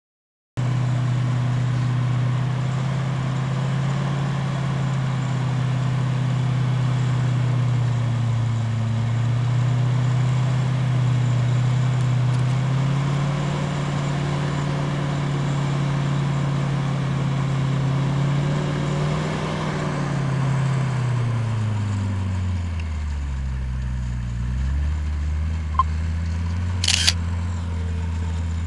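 Mercedes-Benz G-Class engine running steadily under load as the 4x4 crawls through deep mud; about two-thirds of the way through the revs drop away and then pick up a little again. A sharp click and a short crack sound near the end.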